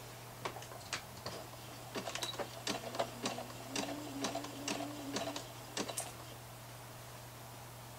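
Irregular light clicks and taps at a domestic sewing machine as jersey fabric is handled and set under the needle, over a steady low hum; the clicks come thickest in the middle and stop about six seconds in.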